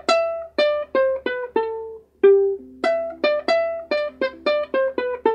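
Ukulele picked one note at a time, playing a slow single-note intro melody: about half a dozen notes, a short pause about two seconds in, then a quicker run of about a dozen notes.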